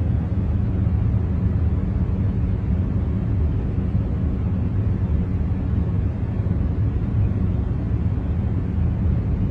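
Steady, deep masking noise for concentration, strongest in the bass and thinning toward the treble, with no changes or separate events.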